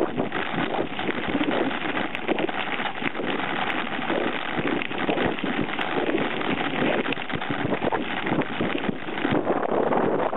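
Mountain bike riding a dirt trail: wind noise on the handlebar-mounted camera's microphone, with constant irregular rattling and knocking from the bike and its tyres over the rough ground.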